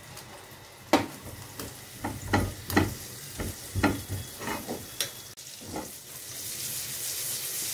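A ladle scraping and tapping against a nonstick frying pan as a lump of butter is pushed around to melt it. Over the last couple of seconds a sizzle grows steadily louder as the melting butter heats in the pan.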